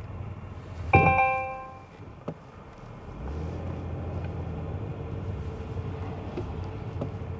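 A single bell-like chime about a second in, fading out over about a second. From about three seconds in, a car's steady low engine and road rumble grows louder.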